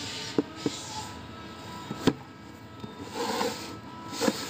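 Background music with steady held notes, broken by four sharp taps, the loudest about two seconds in.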